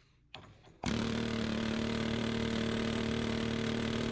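Pneumatic air chisel hammering on a seized, cut-off bolt stub in a leaf spring's rubber bushing. It makes a loud, steady buzzing rattle that starts suddenly about a second in and cuts off near the end.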